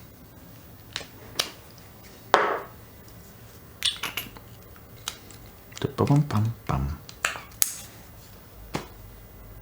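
A string of short, sharp clicks, snaps and taps, spaced irregularly about a second apart, with a brief low voice-like sound a little past the middle. These are test sounds in a small room picked up by an Austrian Audio CC8 small-diaphragm condenser microphone.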